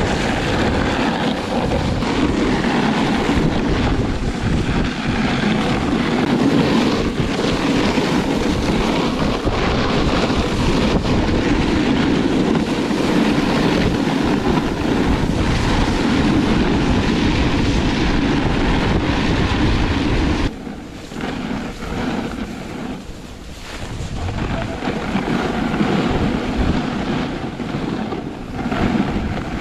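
Wind rushing over an action camera's microphone mixed with a snowboard sliding and scraping over packed snow during a run, a steady loud rush that drops quieter for a few seconds about two-thirds of the way through.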